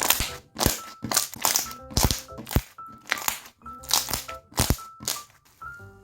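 Slime being pressed and squeezed by hand, giving a quick run of sharp crackles and pops, about three a second, that stop near the end. Soft background music plays underneath.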